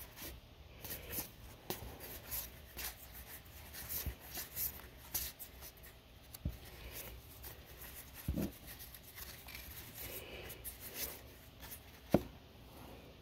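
Magic: The Gathering trading cards sliding one by one across a hand-held stack: soft scrapes and flicks of card on card, with a couple of louder knocks, the sharpest near the end.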